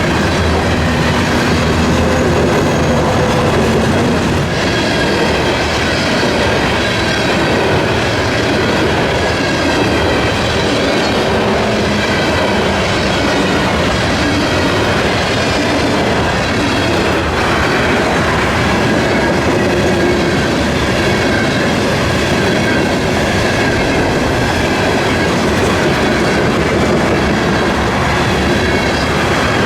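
Railroad cars rolling past, a steady rumble and clatter of steel wheels on the rails, with faint high wheel squeal.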